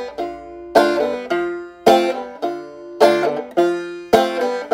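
Banjo strumming chords in a steady rhythm, a strong strum about once a second with lighter ones between, each chord ringing and fading.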